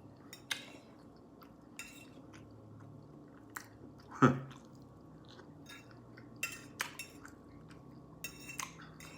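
Close-up eating sounds: chewing with scattered light clicks of cutlery against a dish. About four seconds in there is one short, louder voiced sound.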